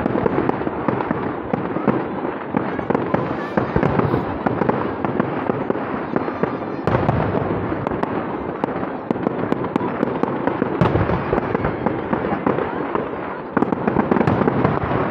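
Aerial fireworks display: shells bursting in close succession with continuous crackling, and a louder burst of bangs about seven seconds in and again near the end.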